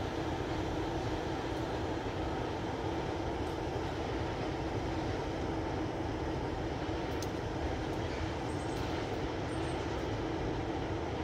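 Diesel locomotive's engine running with a steady low drone and hum as it moves slowly with a train of tank wagons.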